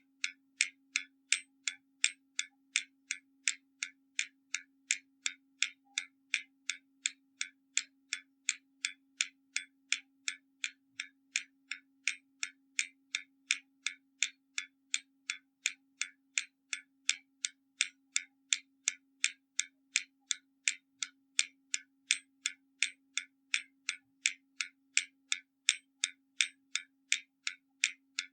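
Hermle mechanical skeleton clock ticking steadily, about two ticks a second, alternately louder and softer in a tick-tock rhythm from the escapement.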